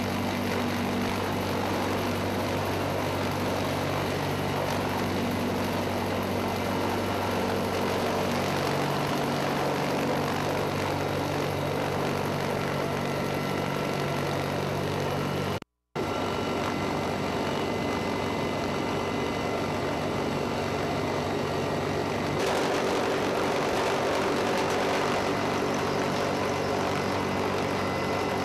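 Military transport aircraft's engines running, heard from inside the cabin with the rear cargo ramp open: a steady loud drone with low engine tones, which shift about a third of the way in as it rolls along the runway. The sound breaks off for a moment just past halfway, then continues as in-flight cabin noise, a little louder near the end.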